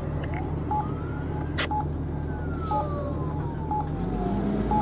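Emergency vehicle siren wailing as the fire apparatus pulls away, slowly rising in pitch for about a second and a half, then falling more slowly, over a low steady engine rumble. A short beep repeats about once a second, and there is one sharp click about one and a half seconds in.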